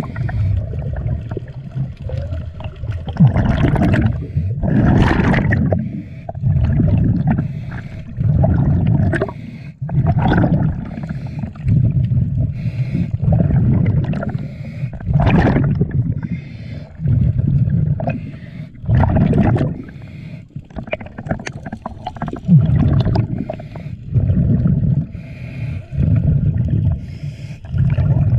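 A diver breathing underwater: air bubbling out in a loud, gurgling rush every second or two, heard through the water.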